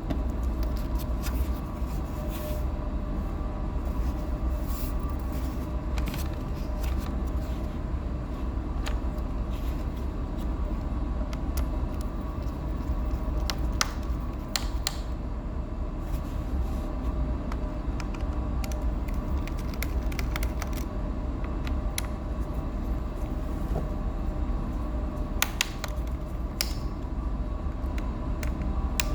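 A steady low hum of background machinery, with scattered sharp clicks and taps of small hard parts being handled, such as screws and a plastic laptop case.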